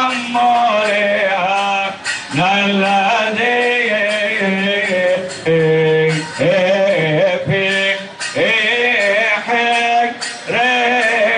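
A man singing an Arabic praise hymn (madih) to the Virgin Mary in the Coptic manner, in long ornamented phrases of a second or two each, with short breaths between them.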